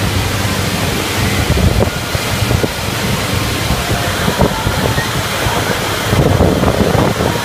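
Loud, steady rushing hiss of air blasting up through the floor vents of Luigi's Flying Tires, the air-cushion bumper ride that floats the tyre cars, with a low blower hum underneath.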